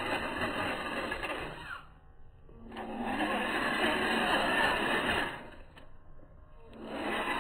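Small electric motor and gear drivetrain of a 1/16 scale RC rock bouncer whirring in bursts as the throttle is worked. It eases off about 2 seconds in, runs again loudest for nearly 3 seconds, and starts up once more near the end.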